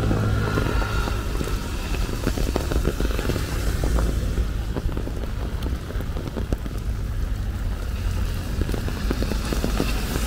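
Monsoon rain falling steadily, with many scattered sharp drop ticks close to the microphone over a low, steady rumble.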